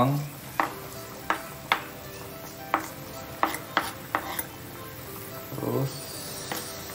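Kitchen knife blade scraping chopped vegetables off a plastic cutting board into a pan of boiling soup: a run of sharp clicks and scrapes, about seven in the first four and a half seconds.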